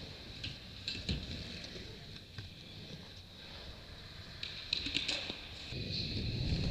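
Skateboard wheels rolling on a concrete skatepark floor, with a few sharp clicks and knocks from the board about a second in and a cluster of them around five seconds in; the rolling rumble grows louder near the end.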